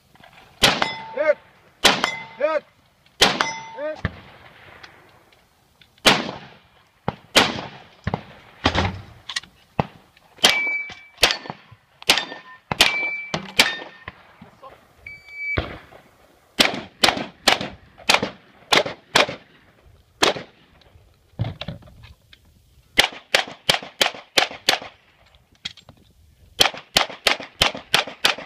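Gunfire from a 3-gun competition stage: single and paired rifle shots, several followed by the short metallic ring of hit steel targets, then a fast string of pistol shots near the end.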